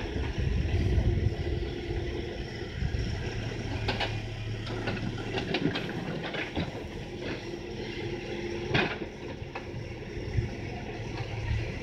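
Hidromek backhoe loader's diesel engine running steadily under load as the backhoe arm digs, with a few sharp knocks and scrapes of the bucket against soil and stones, the loudest about nine seconds in.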